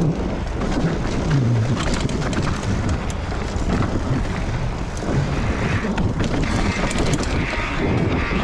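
Trek Stache 7 hardtail mountain bike rolling fast over dirt singletrack and rocks: a steady rush of tyre and wind noise with frequent clicks and rattles from the bike.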